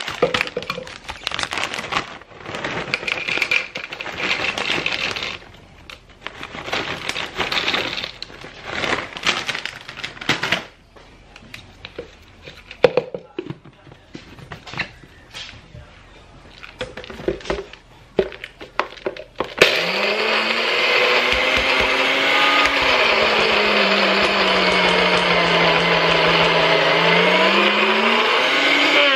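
Crinkling of chip bags and rattling of Cheetos being poured into a blender cup. About two-thirds in, a NutriBullet blender starts and runs loudly while it grinds the Flamin' Hot Cheetos into powder, its motor pitch sagging and rising again before it winds down at the end.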